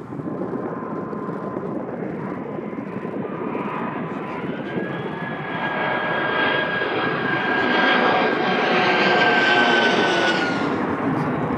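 Airbus Beluga XL's twin Rolls-Royce Trent 700 turbofans in a low flypast: engine rumble with a fan whine that builds as the aircraft approaches and is loudest as it passes overhead. Near the end the whine drops away sharply.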